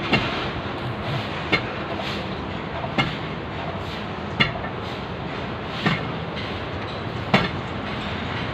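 Hammer blows on a construction site, one sharp strike about every second and a half, over a steady background rumble.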